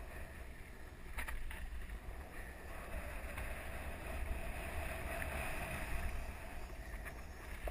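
Mountain bike rolling down a dry dirt trail: wind buffeting the helmet or bike camera's microphone over the rumble of the tyres on the ground, with a few sharp rattles as the bike hits bumps.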